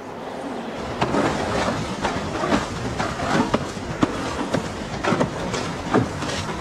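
Soundtrack music with sharp percussive hits, two or three a second, that gets louder about a second in.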